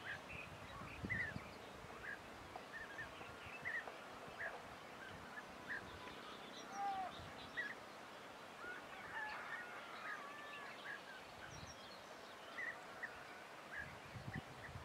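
European bee-eater calling: short, clipped call notes repeated irregularly, about one every second or two, with a few lower sliding notes around the middle.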